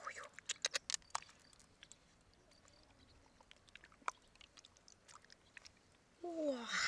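Fingers squelching and clicking in the wet flesh of a giant freshwater mussel: faint scattered clicks and wet crackles, busiest in the first second and a half. Near the end comes a louder hiss with a brief falling tone.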